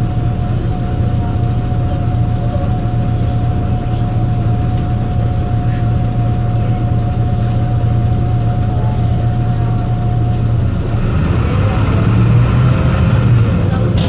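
MAN NL 263 city bus's D08 diesel engine idling steadily: a constant low hum with a steady higher whine over it. About eleven seconds in the whine drops out and the sound swells for a couple of seconds with added hiss and higher tones, then settles again.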